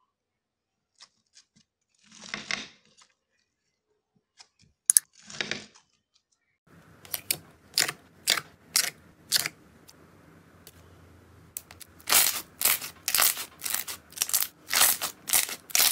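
Crunchy bead-filled slime being squeezed, giving two short crackling crunches. Then hands press glossy clear slime, giving sharp wet clicks and pops about two a second, coming faster and louder in the last few seconds.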